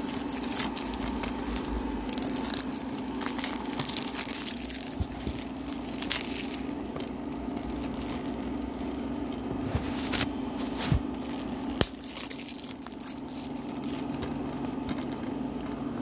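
Cellophane shrink wrap being peeled off a plastic DVD case and crumpled in the hands: irregular crinkling and crackling, with two sharper clicks about two-thirds of the way through, over a steady low hum.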